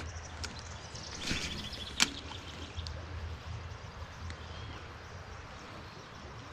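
Casting with a fishing rod: a short swish about a second in, then a single sharp click. Birds chirp faintly in the background.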